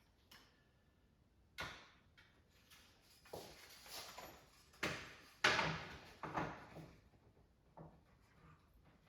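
Kitchen cabinet drawers and doors being opened and shut: a run of separate wooden knocks and sliding scrapes, the loudest about halfway through.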